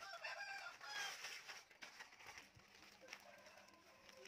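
Chickens clucking faintly, a few short calls near the start, then quieter.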